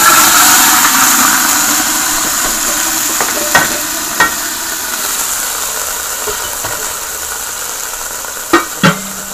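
Pieces of boiled beef sizzling loudly in hot olive oil in a pan, just dropped in: the sizzle hits hard at once and slowly eases. A few sharp knocks against the pan come around four seconds in and twice near the end.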